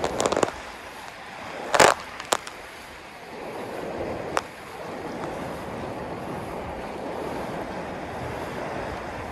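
Steady rush of sea waves and wind at the shore, with a few sharp clicks or knocks in the first half, the loudest about two seconds in.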